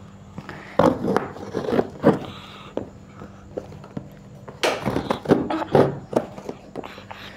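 Packing tape on a cardboard box being slit and scraped open with the point of a pen-like tool: irregular scratches, taps and small rips, in two busy stretches about a second in and about five seconds in.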